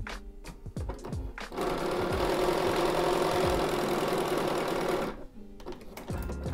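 Bernina computerized sewing machine stitching a seam through a paper foundation and two layers of quilting cotton. It starts about a second and a half in, runs steadily for about three and a half seconds, and stops suddenly.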